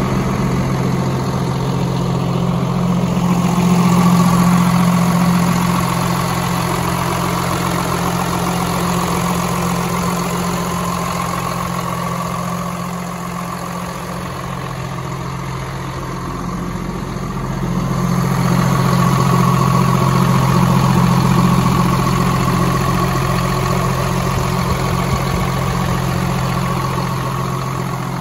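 2013 Hino 268's six-cylinder turbo diesel idling steadily, a low hum with a fainter higher whine above it, growing louder and softer by turns.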